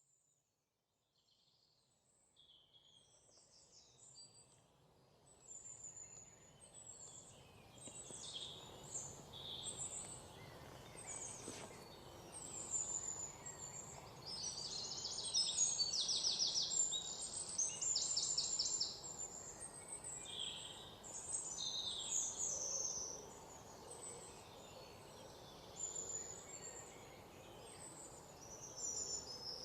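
Many small birds chirping and trilling over a faint steady background hiss, fading in from silence over the first several seconds.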